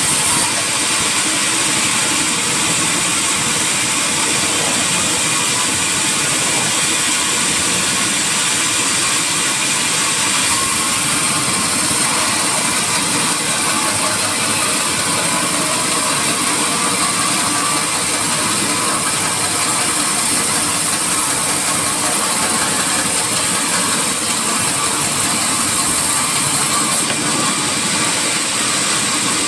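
Sawmill saw running steadily, a loud, even machine noise with a strong high hiss.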